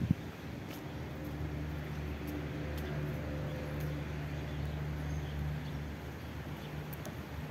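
A low, steady motor hum that comes in about a second in and fades near the end, over faint outdoor background noise. A sharp click at the very start.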